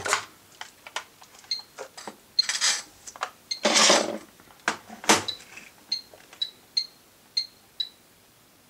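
Hupra radiation meter giving short high beeps at irregular intervals, one per detected count, about nine of them, here counting background radiation. Knocks and rustles of the meter being moved and set down on the worktop, loudest about four and five seconds in.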